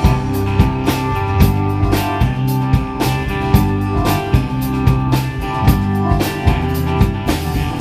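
Live rock band playing an instrumental passage between sung lines: a drum kit keeps a steady beat of about two strokes a second under guitars and keyboard.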